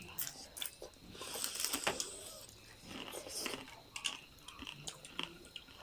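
Close-miked chewing and biting of food, with irregular wet clicks and small crunches.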